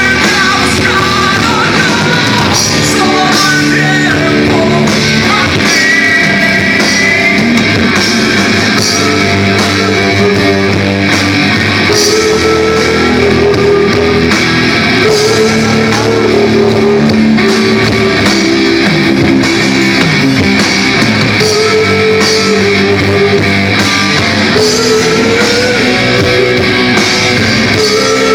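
Rock band playing a song live at full volume, with electric guitars, drum kit and a melodic lead line over them.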